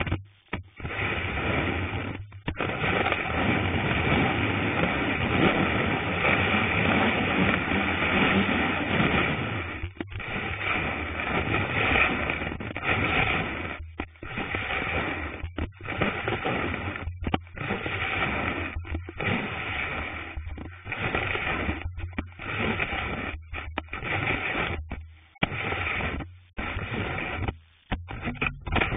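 Cross-country ski sliding over snow: a steady scraping hiss heard from on the ski itself. From about ten seconds in it cuts out briefly about every one and a half seconds.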